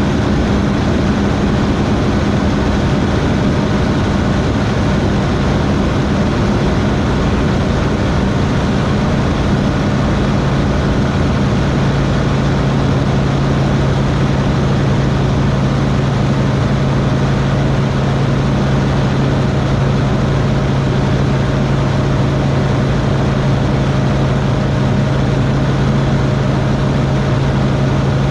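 Van's RV-12iS light aircraft's Rotax 912 iS four-cylinder engine and propeller running steadily in flight. Its drone settles to a lower pitch about eight seconds in.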